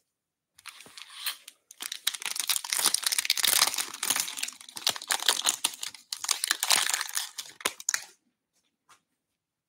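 Foil wrapper of a 2022 Bowman Draft baseball card pack crinkling and tearing as it is ripped open and peeled off the stack of cards. The crackling stops about a second and a half before the end.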